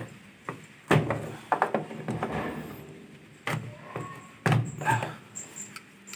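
Plastic casing parts of a Polytron washing machine being pried loose with a tool: a series of sharp knocks and clicks, the loudest about a second in and again around three and a half, four and a half and five seconds, with lighter clatter between.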